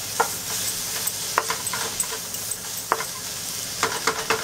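Chopped onions, ginger and garlic sizzling in a wok in a little oil while a wooden spatula stirs them, with a few short, sharp taps of the spatula against the pan, several of them close together near the end.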